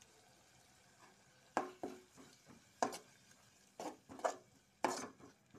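A metal spoon stirring thick masala in an aluminium pot, scraping and knocking against the pot in about six sharp strokes, starting about a second and a half in.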